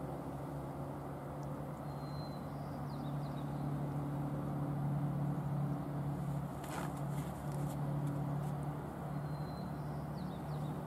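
Engine running steadily, a low droning hum that swells slightly in the middle. Two short high chirps come early and again near the end.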